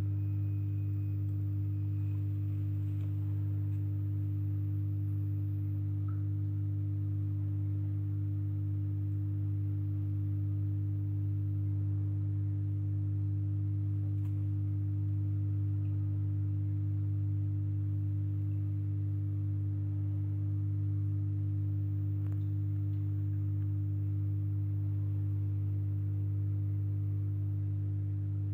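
A steady low hum holding a few fixed pitches, unchanging throughout.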